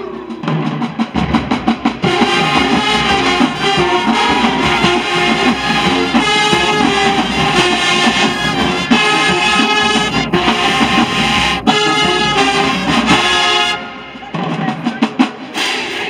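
Marching band playing its field show with brass and drumline. Drums lead in for about two seconds before the full brass section, including sousaphones, trumpets and trombones, plays loudly over the drums. The sound drops away briefly near the end.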